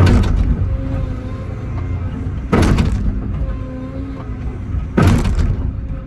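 Excavator engine running under load while concrete is torn out, with three heavy crashes about two and a half seconds apart: the bucket striking and breaking the concrete pad.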